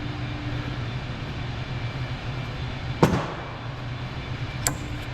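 Steady low hum of shop background, broken by a sharp knock about three seconds in and a lighter click near the end, as worn front brake pads and parts are handled at the caliper.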